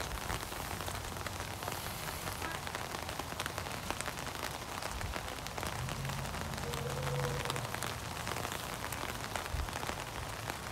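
Steady rain falling, with many small drop ticks close by.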